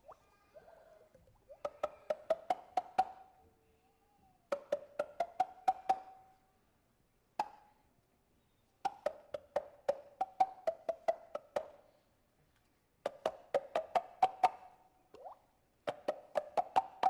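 Sharp, pitched clicks made with the body, in quick runs of about six a second. Five runs of one to three seconds are separated by short pauses, with a single click between the second and third runs.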